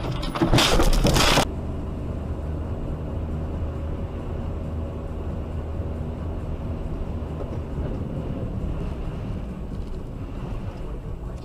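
Steady low road and engine rumble of a car cruising on a snowy highway, heard from inside the cabin through a dashcam. In the first second and a half a loud rushing noise cuts off abruptly.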